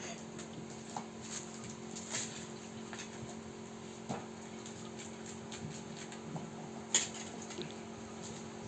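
Light scattered clicks and taps of speargun parts being handled, with a sharper click about seven seconds in, over a faint steady hum.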